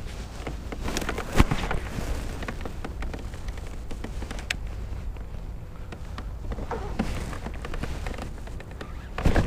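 Scattered light clicks and knocks of a baitcasting rod and reel being handled against a plastic kayak, over a low steady rumble of wind and water, with one sharper knock about a second and a half in.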